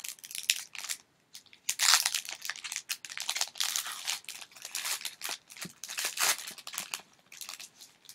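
Clear plastic wrapper on a pack of trading cards crinkling and tearing in irregular crackling bursts as it is pulled open by hand.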